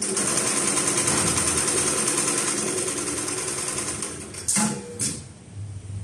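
Automatic programmable sewing machine running at speed, stitching through thick braided climbing rope with a fast, even rattle. It stops near the end, followed by two short sharp bursts about half a second apart.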